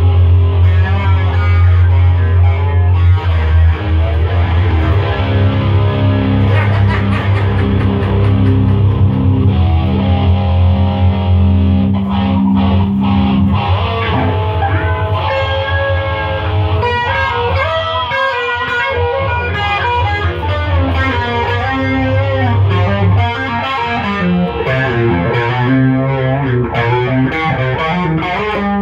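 Electric guitar played with distortion, with chords and single notes held and left to ring, changing every few seconds.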